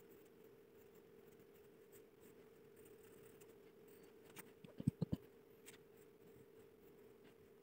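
Faint scratching of a graphite pencil sketching on paper over a steady low hum. About five seconds in comes a quick cluster of dull knocks.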